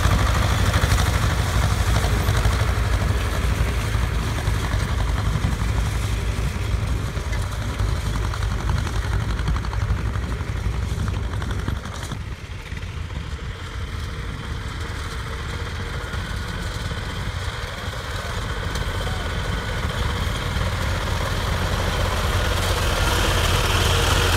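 Small farm tractor diesel, a T-25, running steadily as it tows a finger-wheel hay rake. It is loud at first, drops away suddenly about halfway through when heard from far off, then grows louder again near the end as another tractor comes close.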